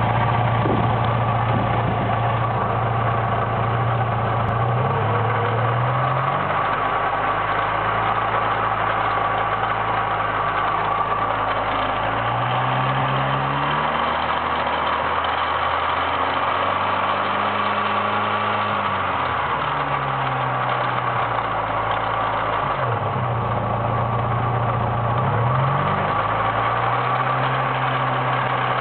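VW Mk2 Golf GTI's 1.8-litre 16-valve four-cylinder engine running with a clatter, its speed rising and falling a few times. The owner has checked every nut and bolt and suspects something wrong in the cylinder head, possibly the lifters, though the engine runs fine.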